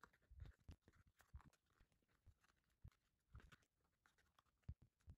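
Faint, irregular small clicks and rustles of leather being hand-stitched: needle and thread drawn through the stitching holes and the leather piece handled.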